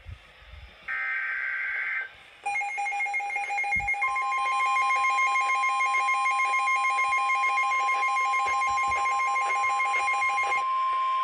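NOAA Weather Radio alert signals: a short buzzing SAME data burst about a second in, then a rapidly pulsing electronic alarm beep from about two and a half seconds. About four seconds in, the steady 1050 Hz warning alarm tone joins and holds on, and the pulsing beep cuts off near the end.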